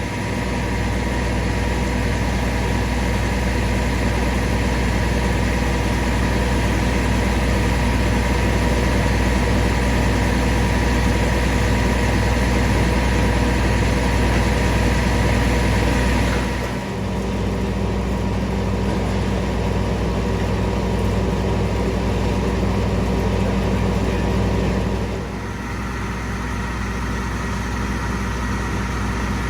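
Fire engine idling steadily at a fire scene: a continuous low engine hum with steady tones above it. The sound shifts abruptly and dips slightly in level twice, about halfway through and again near the end.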